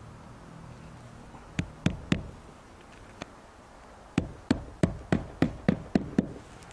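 Hammer driving a roofing nail through an asphalt ridge cap shingle into the roof. Three taps to set it, then a quick even run of about eight blows.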